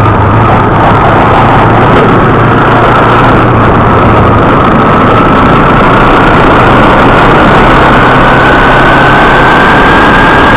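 Kawasaki Ninja 250R parallel-twin engine running at a steady cruise under a loud, even rush of wind noise. A thin high whine dips slightly, then slowly climbs as the bike gathers speed.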